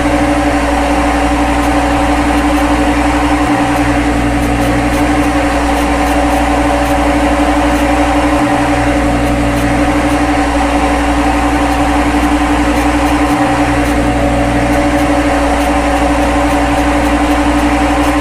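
Simulated CNC lathe machining sound, a steady loud machine drone with a few steady tones over a deep rumble, played while the internal grooving cycle runs. The rumble breaks off briefly about every five seconds.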